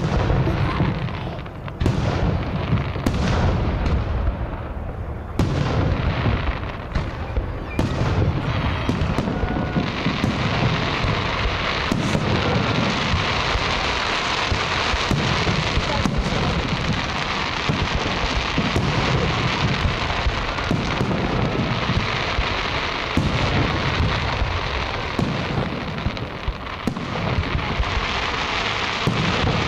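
Fireworks display: repeated booms of shells bursting overhead. From about ten seconds in, a continuous dense crackle of glittering stars carries on over the booms.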